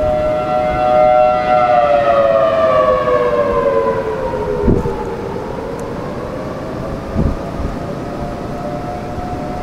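A 1980 Federal Signal Thunderbolt 1003A siren sounding its attack signal about 1200 feet away, against strong wind. Its pitch holds, then falls over about three seconds and winds back up to full pitch. Two low thumps come near the middle.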